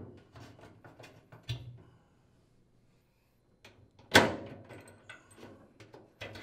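Clicks, scrapes and rattles of a metal transport bolt and its plastic spacer being slid along and pulled out of the opening in a washer's sheet-metal rear panel, with one sharp clack about four seconds in.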